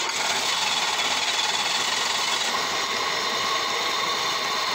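GM 3800 Series II V6 being cranked and barely starting, the noise coming in suddenly and then going on steadily. The engine is misfiring: its ignition coils on cylinders 2 and 5 give no spark.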